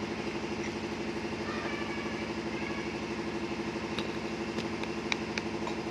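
A machine running steadily: a low hum with a fast, even pulse, like an idling engine. A few light clicks come between about four and five and a half seconds in.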